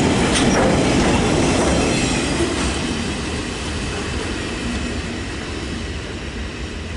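Freight train of grain hopper wagons rolling past on the rails, its wheel and rail noise fading steadily as the last wagons move away.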